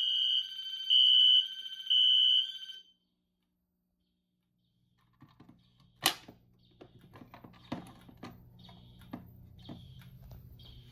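Fire alarm sounder on a Simplex 4010 demo system sounding a high electronic tone that pulses about once a second, then cuts off suddenly about three seconds in. After a short silence, a few sharp clicks and a fainter, repeating alarm tone start up.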